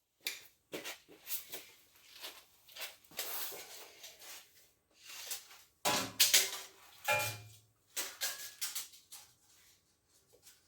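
Metal clanking and knocking as steel parts are handled and set down, irregular strikes with a couple of loud ones about six and seven seconds in that ring briefly.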